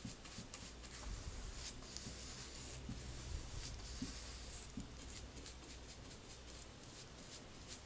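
A paintbrush stroking black paint onto a wooden chair: repeated soft, scratchy swishes of the bristles on the wood, with a few soft knocks.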